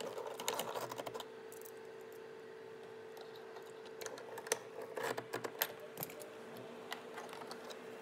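Light plastic clicks and taps as a small plastic trim piece is handled and fitted around a Tesla Model S rear door handle: a few clicks in the first second, a quiet stretch, then a cluster of sharper clicks through the middle, over a faint steady hum.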